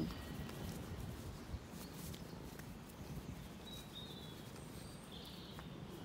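Quiet outdoor rural ambience: a low, uneven rumble with a few small clicks, and a few faint, short bird calls in the second half.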